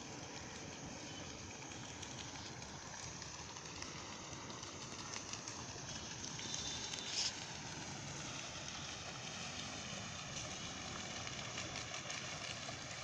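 Outdoor wetland ambience: a steady noisy background with scattered clicks and short high-pitched bird calls, the loudest about seven seconds in.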